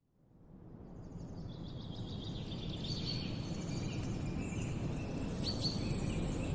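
Steady rushing of a waterfall, fading in over the first two seconds, with high chirping calls above it.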